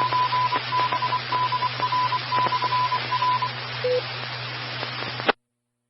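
Morse code beeps at a single pitch on an amateur radio channel, short and long tones over steady radio hiss and static clicks, typical of a repeater's call-sign identification. A single short, lower beep follows, and the transmission cuts off suddenly about five seconds in.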